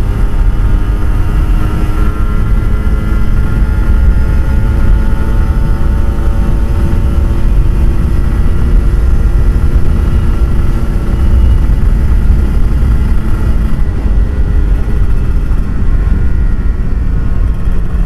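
Kawasaki Ninja RR 150's two-stroke single-cylinder engine through an Eighty Racing aftermarket exhaust, held at a steady engine speed while riding and easing slightly lower in pitch past the middle. A heavy low rumble runs underneath.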